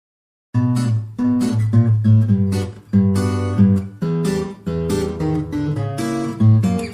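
Background music: acoustic guitar strumming chords in a steady rhythm, starting about half a second in.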